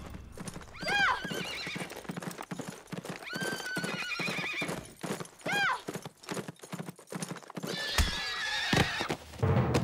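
Horses' hooves clattering throughout, with several whinnies: a short one about a second in, a longer one around three to four seconds in, and more near the middle and end.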